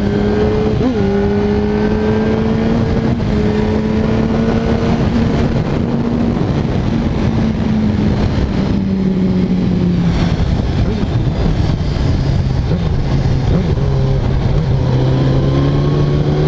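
Motorcycle engine running under way with heavy wind noise over the microphone. Its pitch holds and rises gently, falls from about halfway through as the bike slows, and climbs again near the end.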